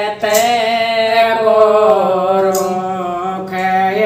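A woman singing a Rajasthani chetavni bhajan, drawing out one long held note that dips slightly in pitch midway and then holds steady.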